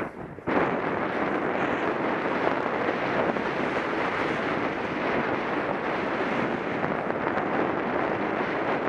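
Rushing wind on the microphone mixed with the scrape of a snowboard sliding over groomed corduroy snow. The noise drops out for about half a second at the start, then goes on steadily.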